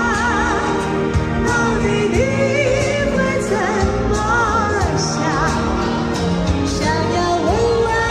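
A woman singing a Chinese pop song with wide vibrato into a microphone over a backing track, both played through a portable loudspeaker.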